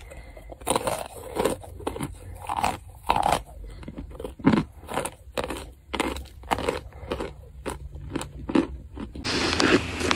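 Chunks of cornstarch being bitten and chewed: crisp, separate crunches about once or twice a second. About nine seconds in, the crunching becomes denser and steadier.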